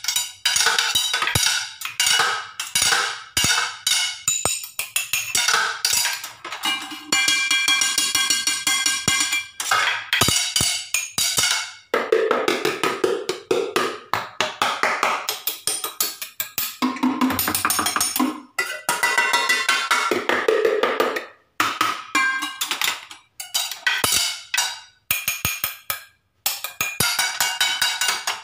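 Kitchen pots and plates being struck over and over in quick, irregular strokes. Some hits ring on with a held pitched tone, and there are a few brief pauses near the end.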